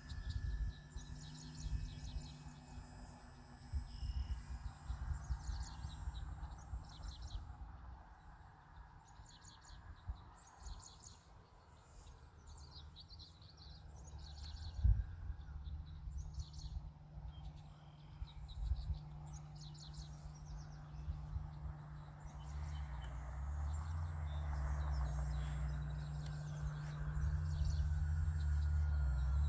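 Birds chirping in short repeated bursts over a low wind rumble on the microphone. The rumble grows stronger in the last several seconds, and there is a single thump about halfway through.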